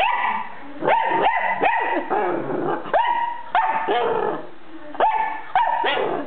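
Blue merle puppy giving about ten short, high-pitched barks in quick bunches: play barking at a plush toy.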